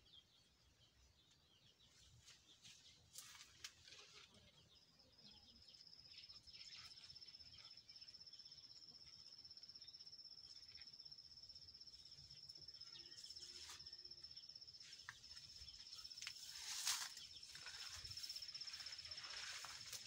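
Faint outdoor garden ambience. A steady high-pitched trill sets in about five seconds in and holds, with a few faint chirps and clicks around it and one louder click near the end.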